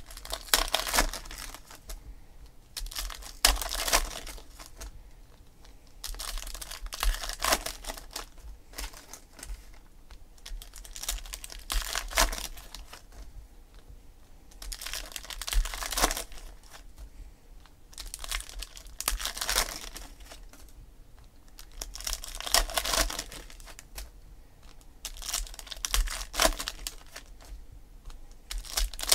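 Foil trading-card pack wrappers being torn open and crinkled, one pack after another, in bursts about every three to four seconds.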